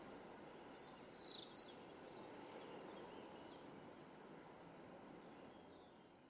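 Faint outdoor background hiss with a small bird's short, high-pitched call about a second in and a few fainter chirps after; the sound fades out near the end.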